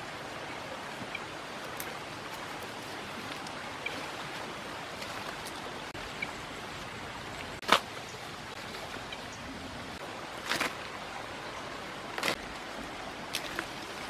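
Steady outdoor hiss broken by a few sharp snaps, the loudest about eight seconds in, as mangosteen fruits are pulled off the tree's branches.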